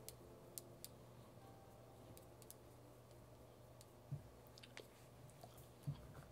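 Near silence: room tone with a few faint, scattered clicks and a trace of soft music in the first two seconds.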